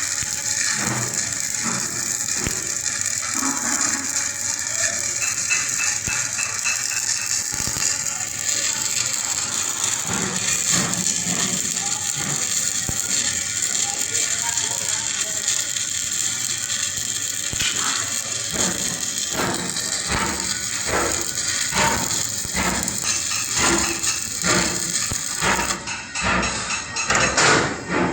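Steady crackling hiss of a stick (SMAW) welding arc burning. In the last ten seconds, sharp metal knocks come more and more often, and the hiss stops a couple of seconds before the end, leaving only the knocks.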